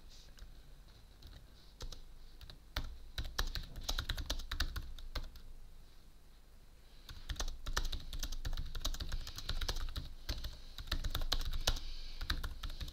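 Typing on a computer keyboard: runs of quick key clicks that start about three seconds in, stop for a second or so around the middle, then go on.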